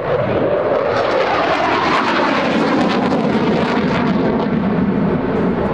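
Jet noise from a Saab JAS 39 Gripen's single Volvo RM12 turbofan as the fighter flies overhead in a display, a steady, even rumble.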